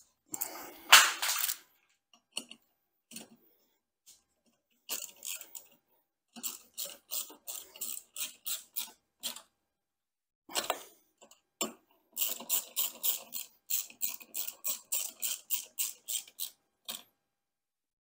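Hand ratchet clicking in runs of quick, even strokes as the motorcycle seat's bolts are run in, after a short loud scrape about a second in.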